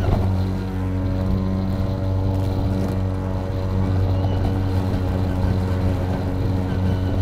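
EGO Power+ LM2135SP 56 V battery self-propelled lawn mower running steadily while cutting grass: its motor and spinning blade give a continuous, even hum with several steady pitched tones.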